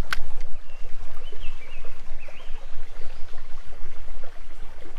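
Outdoor creek-side ambience: a steady low rumble, a sharp click just after the start, and a few faint high chirps from a small bird between about one and three seconds in.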